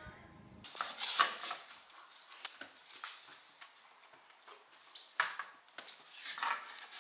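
A dog, heard as a run of short, irregular, noisy sounds after background music stops about half a second in.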